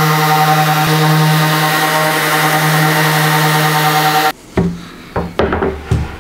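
A hand-held power tool's motor running at a steady speed, working on the bench top, then stopping abruptly about four seconds in, followed by a few knocks and clatter.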